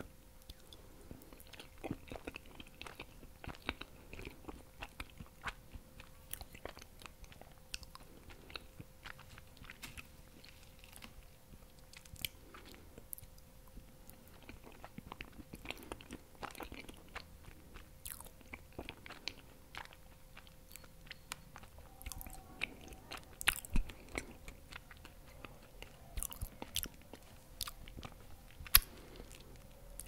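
Close-miked mouth sounds of a person chewing a bite of cheesecake with a berry topping: many small, sharp mouth clicks scattered throughout, a few louder ones near the end.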